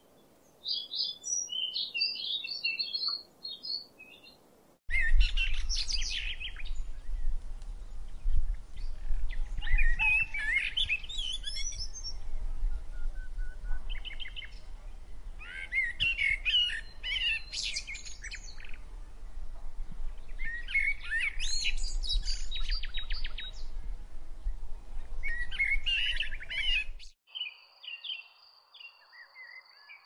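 Songbirds singing: a brief high twittering, then song phrases a second or two long every few seconds over a steady low rumble. Near the end the rumble cuts off and quieter chirping with a thin steady high tone takes over.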